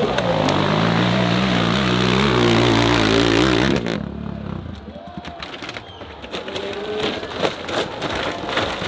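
Dirt bike engine revving hard and unevenly, its pitch wavering and climbing, then cutting off abruptly about four seconds in. After that it is quieter, with scattered knocks and clatter.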